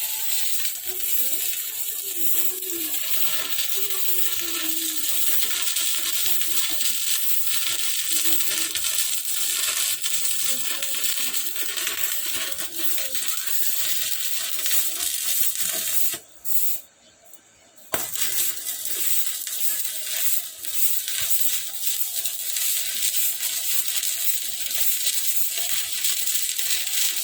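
Stick (SMAW) electrode arc welding on a Yamato 200 A inverter welder set to about 70 A: the arc gives a steady crackling sizzle. The arc breaks off for about a second and a half about two-thirds of the way through, then strikes again.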